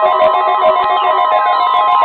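NOAA Weather Radio warning alarm: a steady, loud 1050 Hz tone, sounded for the weekly test. Electronic music with stepped notes plays over it, and a falling sweep starts about halfway through.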